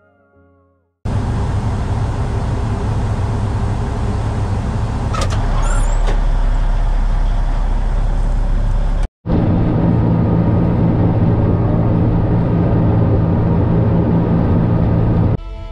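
Caterpillar bulldozer's diesel engine running loudly, heard from inside the cab, with a steady low drone and a few brief high squeaks about five seconds in. The sound breaks off for an instant about nine seconds in.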